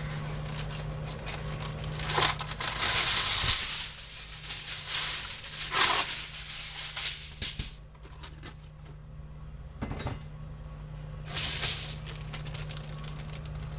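Aluminium kitchen foil crinkling and rustling as it is torn off and handled, in three loud spells with clicks and taps between.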